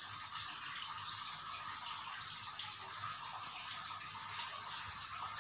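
Steady, even hiss like running or trickling water, with no distinct splashes or knocks.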